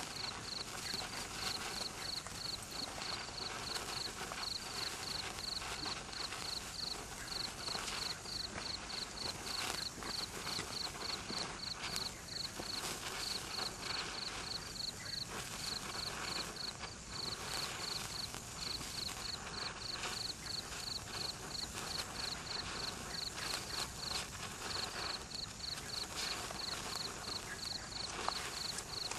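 A neon sparkler burning with a steady fizzing crackle of tiny spark pops. Underneath runs a high, evenly repeated chirping from an insect.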